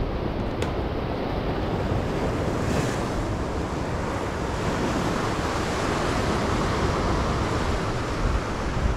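Ocean surf washing against the shore with wind buffeting the microphone, swelling through the second half and peaking near the end.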